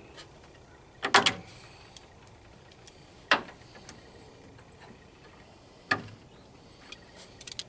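Sharp metallic clacks of hand tools and a hose clamp during work on the heater hose in the engine bay. There is a quick double clack about a second in, single clacks at about three and a half and six seconds, and a few light ticks near the end.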